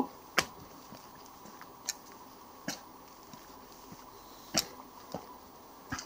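About seven sharp taps at irregular intervals, over a quiet background with a faint steady high tone.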